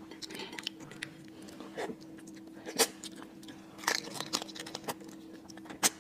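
Close-miked eating of soy-marinated raw crab: wet chewing and biting with sharp cracks of the shell, the loudest about three seconds in and again just before the end.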